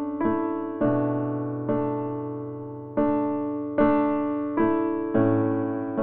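Slow, gentle background piano music: single notes struck about once a second and left to fade, over a low sustained bass note.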